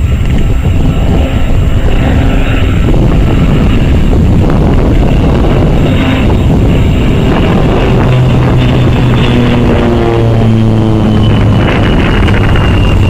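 Beechcraft King Air C90's twin PT6A turboprops passing low overhead on approach: a loud propeller drone with a high turbine whine. The pitch of both drops as the aircraft goes over, in the second half.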